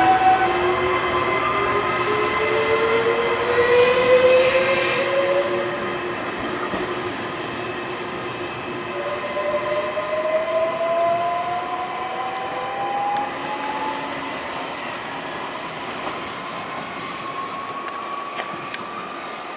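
Trenitalia ETR104 'Pop' electric multiple unit pulling away from a station. Its traction motors whine, rising in pitch in several steps as it picks up speed, over the rumble of the wheels on the rails. It grows fainter as the train moves off.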